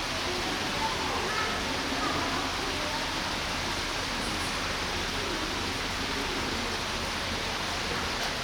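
Steady, even hiss with faint murmuring voices underneath.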